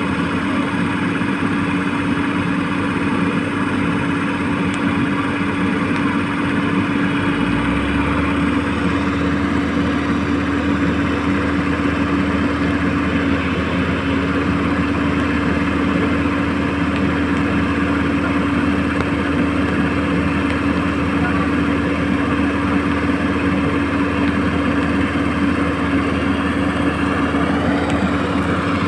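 Radio-controlled model Hitachi excavator running, its hydraulic pump motor giving a steady, constant-pitched hum, with a deeper hum joining in about seven seconds in.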